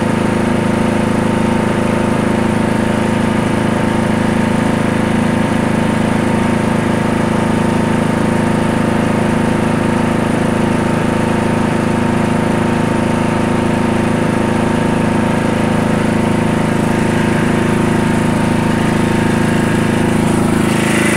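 Small lawn mower engine running steadily while bagging leaves.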